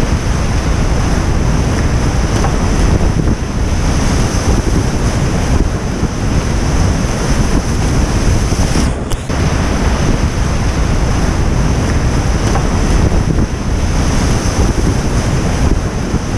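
Whitewater rapid on a boulder-strewn river: a loud, steady rush of churning water, with a brief dip about nine seconds in.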